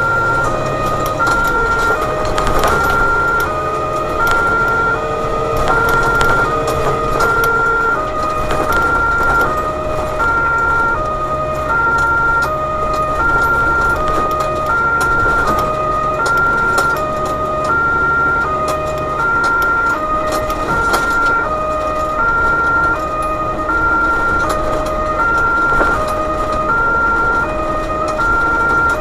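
German two-tone emergency siren sounding continuously, alternating evenly between a higher and a lower pitch, heard from inside the cab of an overhead-line tower truck on an emergency run. The truck's engine and tyre noise run underneath, with an engine tone rising slowly over the first eight seconds or so.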